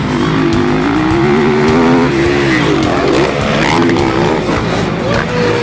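Motocross dirt bike engine revving hard, its pitch climbing and dropping several times as the rider works the throttle through the turns.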